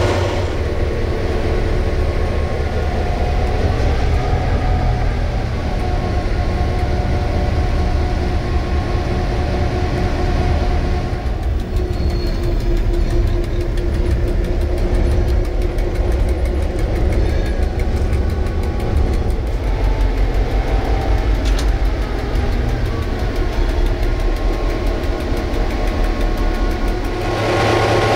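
NOHAB MY-class diesel locomotive's EMD two-stroke engine running as it shunts wagons: a steady low drone that rises and falls in pitch now and then.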